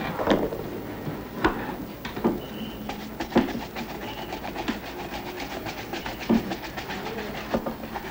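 Shoes being shined by hand: quick, rhythmic rubbing strokes that speed up from about three seconds in, with a few louder knocks along the way.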